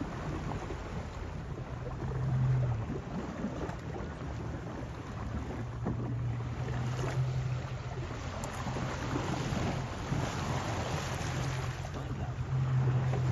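Boat engine idling with a low steady hum that swells briefly about two seconds in and near the end, under wind buffeting the microphone and the wash of the sea.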